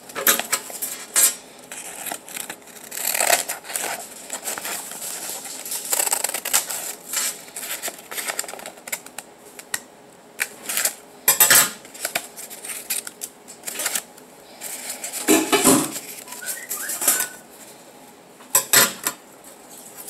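Scissors cutting through rolled construction paper, with irregular snips and paper rustling as it is handled; a few strokes stand out louder near the middle and later on.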